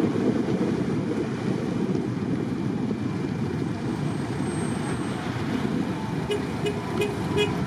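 Jet airliner's engines giving a steady, distant roar as it climbs away after take-off, with a few faint clicks near the end.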